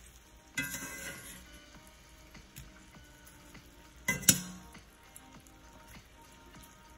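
Cubed sirloin steak sizzling faintly as it browns in oil in a cast iron skillet. A metal utensil scrapes and knocks against the pan about half a second in and again, loudest, around four seconds in, as the pieces are turned.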